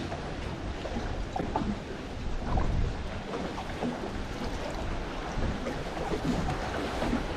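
Steady wind noise on the microphone over water lapping, with a low rumble and a few faint knocks.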